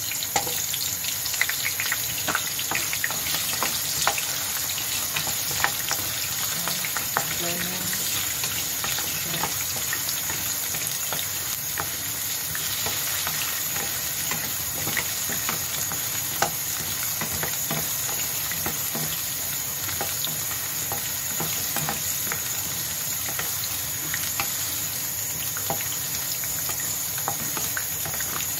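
Carrot chunks frying in hot oil in a non-stick pan, a steady sizzle with frequent small pops, while a wooden spatula stirs them against the pan; the pops and taps are busiest in the first few seconds.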